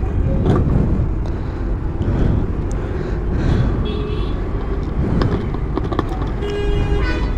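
Petrol glugging from a plastic bottle into a motorcycle fuel tank, over steady road-traffic noise. A vehicle horn sounds briefly about three and a half seconds in and again, longer, near the end.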